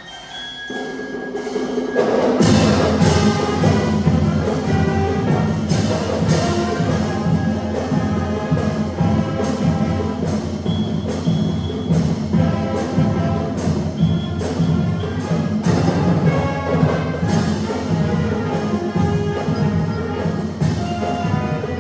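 High school concert band playing. A soft opening swells to full brass and percussion about two seconds in, then keeps going loud with repeated sharp drum and cymbal hits.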